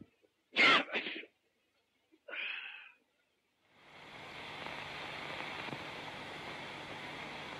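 A man with a head cold sneezes loudly once, about half a second in, and makes a shorter, weaker breathy sound about two seconds later. From about four seconds on there is only a steady hiss from the old film soundtrack.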